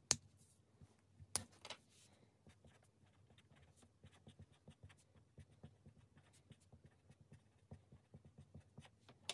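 Fine-tipped Java OHP water-soluble pen writing on paper: faint, quick little scratches of the nib, with a sharp click just after the start and another about a second and a half in.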